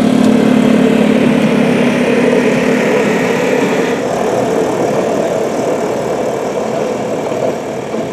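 Small engine of a motorised rail trolley (draisine) running as it travels along narrow-gauge track. A steady hum gives way about four seconds in to a rougher engine sound, which fades a little near the end.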